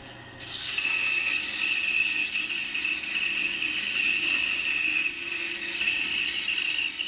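Pegas scroll saw cutting through a thick wooden box blank, a steady high-pitched rasp of the fine blade in the wood that starts about half a second in. It is sawing the top off the box body to make an inside lid.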